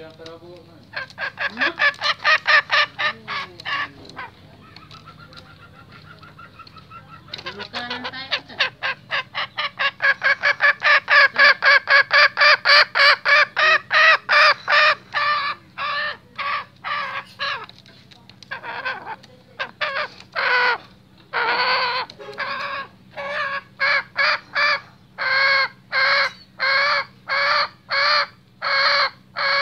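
Male green junglefowl giving agitated, restless clucking calls: fast runs of short repeated notes, about five a second, then from about halfway on slower single notes roughly one to two a second, with a short lull a few seconds in.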